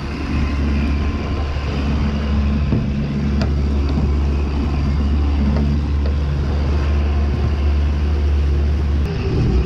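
Suzuki outboard motor running steadily as the boat moves, a continuous low drone with water rushing along the hull and through the wake. The drone shifts a little after nine seconds.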